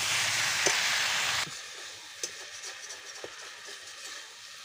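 Drumsticks, potatoes and taro sizzling in a hot karai, loud at first and then dropping suddenly to a quieter sizzle about a second and a half in, with a metal spatula clicking and scraping against the pan.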